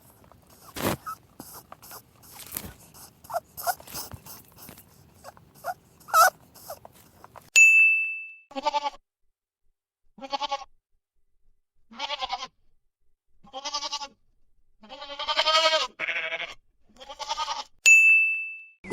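A series of bleats, each about half a second long and coming roughly every one and a half seconds, with the longest and loudest near the end. Before them come scattered clicks and short squeaky calls. A bright chime sounds just before the bleats begin and again as they end.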